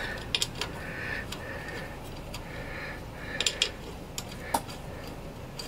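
Light metallic clicks and faint scraping as a steel guide pin is turned by hand into a Lada Kalina's rear brake drum and hub. The clicks are scattered, with a quick cluster of a few about three and a half seconds in.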